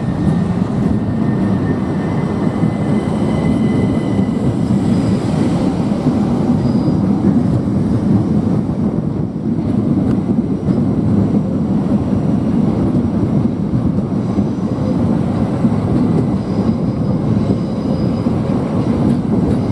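A Class 375 Electrostar electric multiple unit running along the platform: a steady, loud rumble of wheels and running gear, with faint high whining tones above it.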